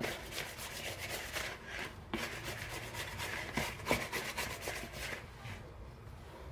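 Hands kneading and gathering soft pizza dough, a run of irregular rubbing and pressing strokes with a couple of sharper knocks.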